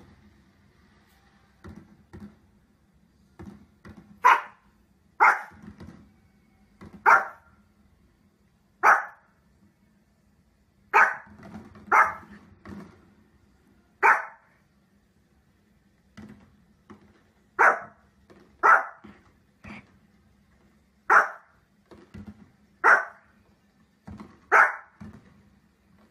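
Pomeranian barking in single short barks spaced one to two seconds apart: a few quiet ones at first, then about a dozen loud ones with softer barks between.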